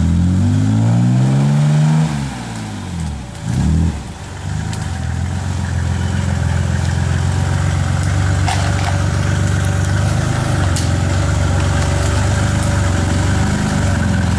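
Off-road buggy's engine revving up hard for about two seconds, dropping back, blipping once more, then running steadily with small rises and falls in revs as it pulls through mud.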